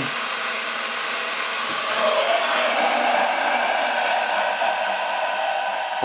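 Kettle heating water: a steady rushing hiss that grows a little louder and fuller about two seconds in.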